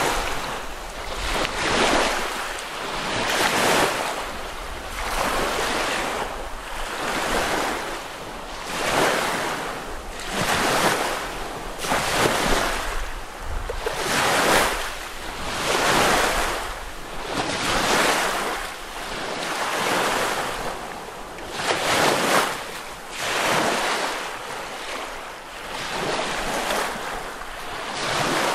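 Small lake waves washing onto the beach in a steady rhythm, one surge about every two seconds.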